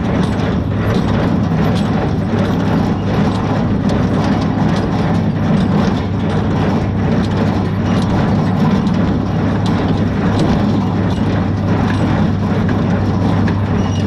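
Small square hay baler running behind a tractor: a steady clatter and knocking of the baler's working parts over the constant low drone of the tractor engine.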